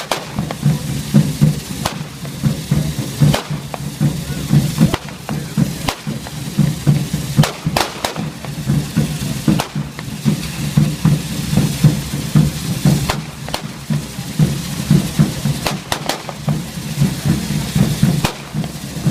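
Ground-level fireworks: sharp firecracker bangs at irregular intervals, over a steady pulsing rhythmic beat that keeps going.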